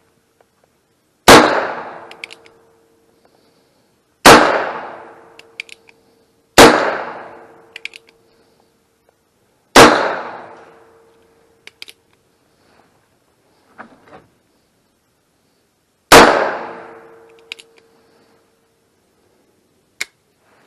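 Five gunshots at an uneven pace, a few seconds apart, each followed by a short metallic ring and faint clicks, with a smaller pop near the end.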